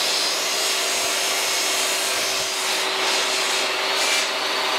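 Portable jobsite table saw running steadily with a constant motor hum while it rips a plywood panel lengthwise.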